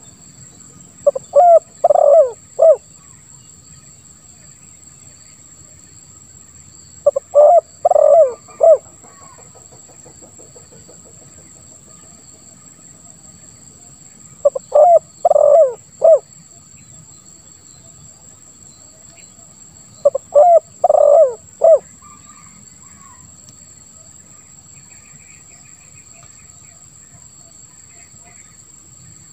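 Spotted dove (tekukur) cooing: four short phrases about six seconds apart, each a quick run of low notes. A steady high insect drone runs underneath.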